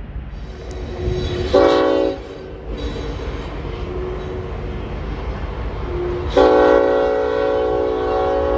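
Union Pacific diesel freight locomotive sounding its multi-note air horn for a grade crossing: a short blast about a second and a half in, then a long blast from about six seconds in, over the steady rumble of the passing train.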